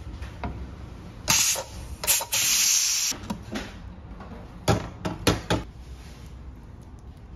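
Pressure cooker venting steam: two short hisses, then a longer hiss of about a second. A few seconds later come three or four sharp metal knocks as the pot is tipped and scraped against a bowl.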